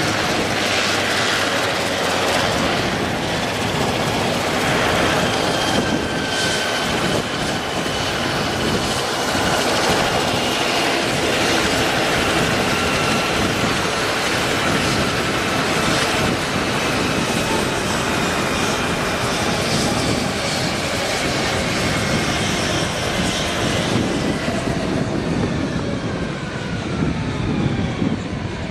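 Sikorsky S-76 helicopter on the ground with its rotors turning: a loud, steady rush of turbine and rotor noise. A thin whine in it falls slowly in pitch as the rotors wind down.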